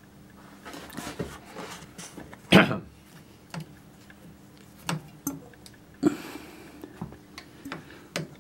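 Scattered light clicks and knocks as a hand-held metal rod is handled against the cast body of an injector pump, over a faint steady hum. One louder, short noise comes about two and a half seconds in.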